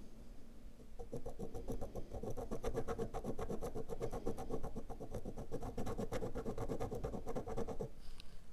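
Steel etching needle scratching quick, repeated hatching strokes into a milk-carton printing plate, pressed in to dent the carton so it will hold ink. The strokes start about a second in and stop near the end.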